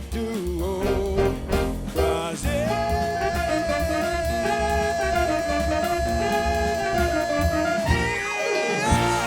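Live jazz band playing the closing bars of a tune, with a long held note over the band. Near the end the bass and drums drop out, ahead of a final accented chord.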